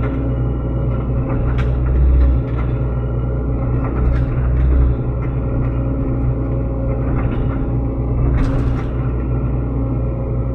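Sany SY75C mini excavator's diesel engine running steadily under load while digging out a bamboo clump, with a deep rumble and two brief sharp knocks, one near two seconds and one about eight and a half seconds in.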